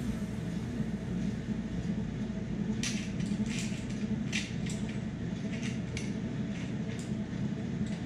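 Small clicks, clinks and rattles of a telescopic fishing rod and spinning reel being handled and fitted together. They start about three seconds in and come at irregular intervals over a steady low hum.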